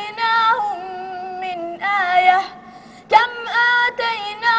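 A boy's high voice chanting Quran recitation in the melodic tajweed style, holding long drawn-out notes that waver in pitch, with a brief drop in level about two-thirds of the way through before the next phrase begins.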